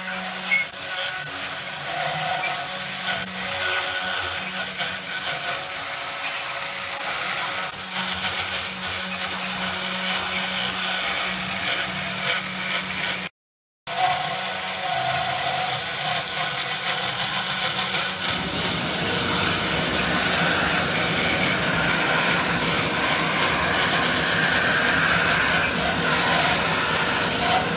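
Desktop CNC router's spindle running with a steady hum as its end mill carves a pine board. The sound cuts out briefly near the middle, and about two thirds of the way through a louder steady rushing noise takes over.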